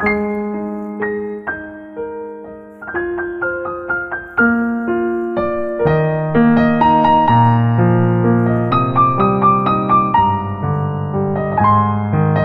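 Background piano music: soft chords and melody notes, with a lower bass part joining about six seconds in.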